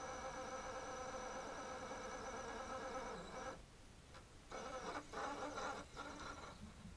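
Radio-controlled truck's motor running at a steady high-pitched whine with many overtones, cutting out about three and a half seconds in, then coming back in short uneven revs.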